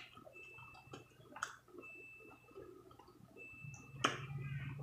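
Faint sounds of drinking and eating: gulps and swallows from a plastic cup, with a few soft clicks, the sharpest about a second and a half in and near the end.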